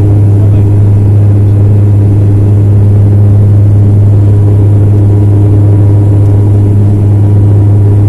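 Turboprop airliner's propellers and engines heard inside the passenger cabin during the climb after takeoff. It is a loud, steady drone with a strong low hum and several fainter higher tones above it.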